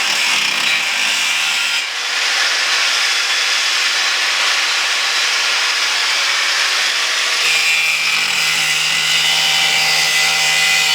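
Angle grinder cutting: a loud, steady grinding hiss with a high whine running through it, easing briefly about two seconds in. It gets stronger in the last few seconds and then cuts off suddenly.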